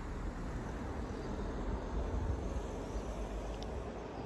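Steady low outdoor rumble with a slight swell about two seconds in.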